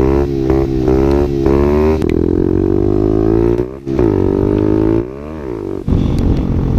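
Small 50cc pit bike engine being ridden, its buzzy note rising and falling as the throttle is worked, then dropping away about five seconds in. A rough, noisy rumble takes over near the end.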